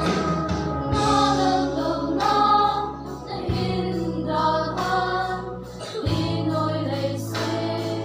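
Youth church choir of young women and men singing a hymn together. Low held accompaniment notes sit underneath and change twice.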